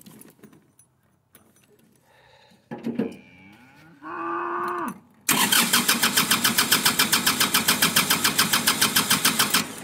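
A cow moos twice, the first call falling in pitch and the second held briefly. Then a red farm tractor's engine cranks over for about four seconds, a loud, fast, even pulsing, and cuts off sharply near the end.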